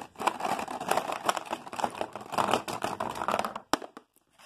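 Small hard-plastic toy train figures from a Safari Ltd Toob being dumped out and clattering against each other and the tabletop. The rapid clicking stops about three and a half seconds in with one last sharp click.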